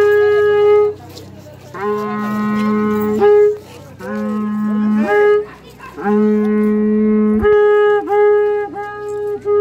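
Music: a wind instrument playing long held notes, mostly on one pitch, with short gaps between them and a few brief slides in pitch; a lower steady note sounds beneath three of the held notes.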